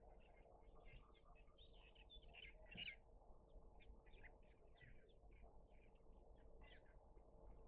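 Small birds chirping faintly, many short calls a few a second, over a faint steady hum.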